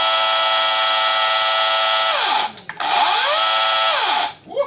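Oregon CS300 36-volt cordless chainsaw running with no load, a steady whine with chain noise. It winds down about two seconds in, spins up again on the trigger, and winds down once more near the end. The noise comes mainly from the chain itself.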